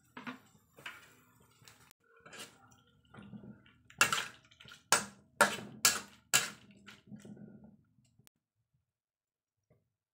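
Metal spatula stirring squid rings in a pan of sauce: wet scraping and clatter against the pan, with five loud strokes about half a second apart in the middle. The stirring stops a couple of seconds before the end.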